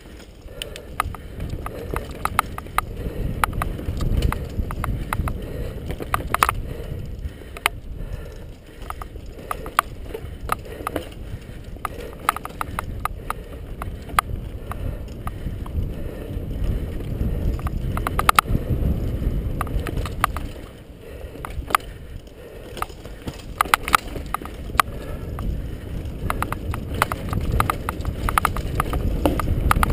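Mountain bike rattling over a bumpy dirt trail at speed: many sharp clicks and knocks from the bike over a steady low rumble of wind and tyres on the camera's microphone.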